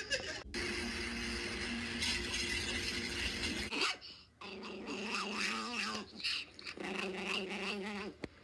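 A small dog making a steady, humming growl in three long stretches while taking a treat from a hand, its playful "nom nom" eating noise, heard through a phone's speaker.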